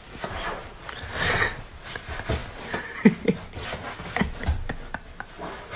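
A cat's claws scrabbling and scratching at a fabric sofa as it clings to the edge, with irregular scrapes and small knocks and a couple of brief low sounds about three seconds in.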